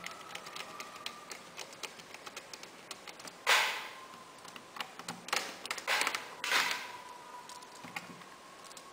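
Light clicks and taps of hands and parts being handled on an opened Samsung NP300E laptop, with a few louder short scrapes midway.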